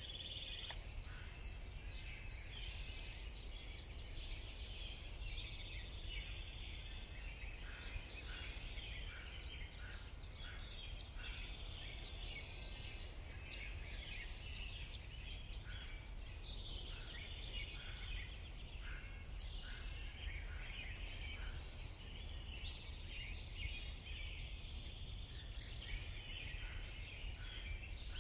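Several backyard birds chirping and calling, with many short overlapping chirps and trills, over a steady low rumble.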